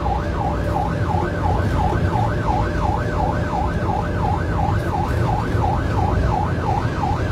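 Rescue van's electronic siren on a fast yelp, rising and falling about three times a second, heard from inside the cab over steady engine and road noise.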